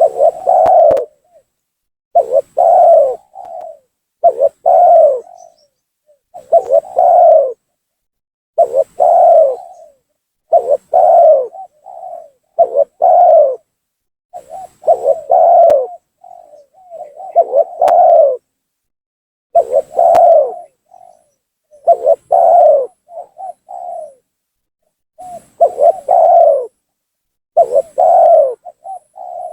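Spotted dove (tekukur) cooing: the same short coo phrase repeated about every two seconds with clean gaps between, a bird-trapping lure call meant to provoke rival doves and draw them down.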